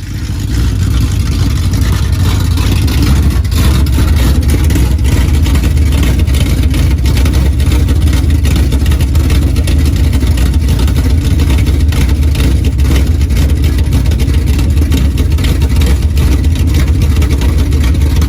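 Dirt-track race car engine running loud and steady at speed, coming in suddenly from silence at the start.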